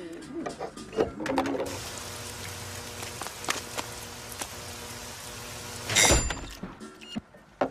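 Steady rain-like hiss with many scattered small ticks and drips, ended by a loud thud about six seconds in; a few clinks from handling cans come before the hiss.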